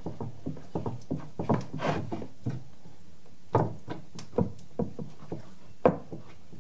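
Sourdough bread dough being kneaded by hand on a wooden board: irregular soft thumps and knocks as the dough is pushed down and turned, with a few sharper knocks in the last few seconds.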